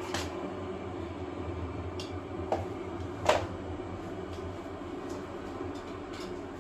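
Steady low hum in a small room, with a few light clicks and one sharper click a little over three seconds in.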